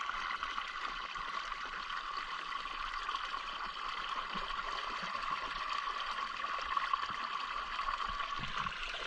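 Steady rush of flowing canal water, an even trickling wash with no breaks.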